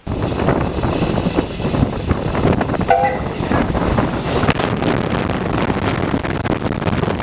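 Steam locomotive close by, with loud steam hiss and running noise throughout, and a short whistle note about three seconds in.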